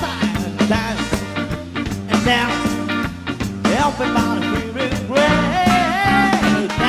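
Live band playing an upbeat song: steady bass and drum beat under a lead melody line.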